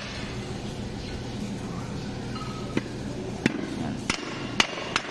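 A handful of sharp, short clicks and taps, mostly in the second half, as a new brake lining is pressed and shifted against a steel brake shoe, over a steady low hum.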